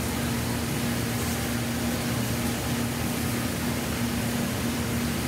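Floured calamari rings deep-frying in a commercial fryer's hot oil: a steady sizzling hiss, with a steady low hum underneath.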